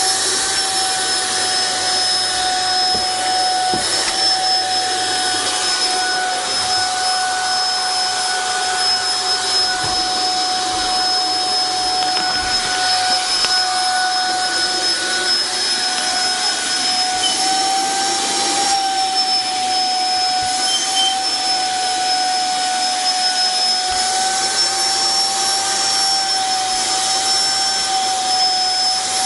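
Vacuum cleaner running steadily: a continuous motor whine over rushing air, its pitch wavering slightly now and then.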